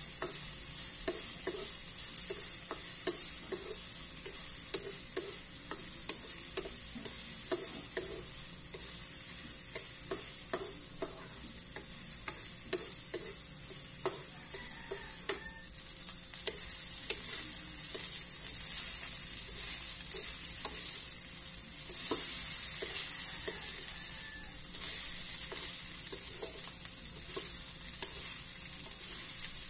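Diced hotdog frying in a metal wok, sizzling steadily while a wooden spatula stirs it, scraping and knocking against the pan many times. The sizzle gets louder about halfway through.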